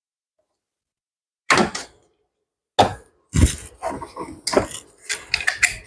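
After about a second and a half of silence, a run of sharp knocks, clicks and clatter from hand tools and parts being handled in a car's engine bay.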